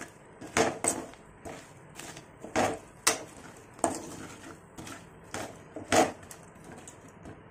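Metal spatula scraping and clinking against a metal pan as chunks of fried chicken coated in spice powder are stirred. The strokes come irregularly, several sharp ones spread through the stirring.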